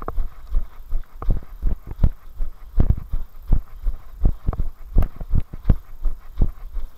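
Running footfalls on a dirt trail, heard through the camera carried by the runner: steady, even thuds about three a second.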